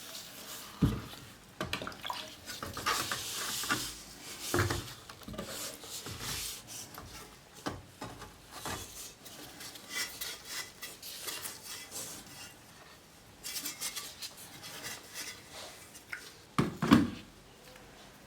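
Hand work on a rusty steel helmet: irregular rubbing and scraping with scattered metallic clinks and knocks. The loudest knock comes near the end.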